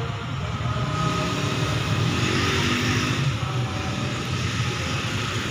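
Motor scooters running on a street: a steady low engine hum, with one passing more loudly around the middle.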